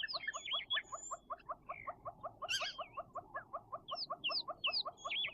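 Birds calling in the bush: one keeps up a fast, even run of short notes, about six a second, while other birds add higher chirps and whistles over it.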